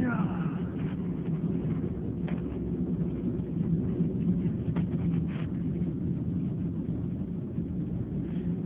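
Steady low background hum with a few faint clicks; a sneeze trails off at the very start.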